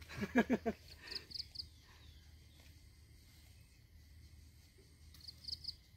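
Outdoor lakeside ambience: two groups of three short, high chirps, about four seconds apart, typical of a calling insect, over a faint low rumble. A few brief voice-like sounds come in the first second.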